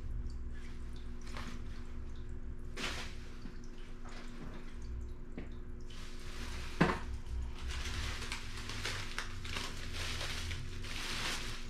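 Clothes and a plastic bag rustling and crinkling as they are handled, mostly in the second half, with one sharp knock about seven seconds in. Under it run a steady low hum and faint dripping water.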